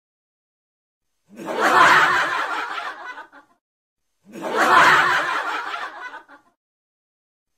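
A recorded laugh sound effect, snickering laughter played twice with the same clip repeated, each burst about two seconds long with dead silence between.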